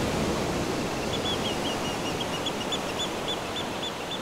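Seaside ambience: a steady rush of surf slowly fading, with a small bird chirping in a quick, even series, about four notes a second, from about a second in.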